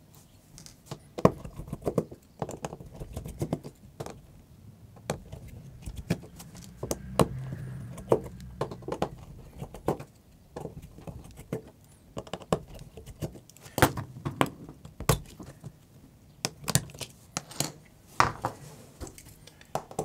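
Irregular small clicks and taps of hand tools on a smartphone's small plastic and metal parts as the cover over the mainboard is taken off.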